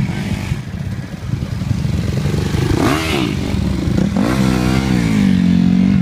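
Dirt bike engines running with a steady low drone. One revs up and back down about halfway through, then another revs up at about four seconds and holds at a steady pitch.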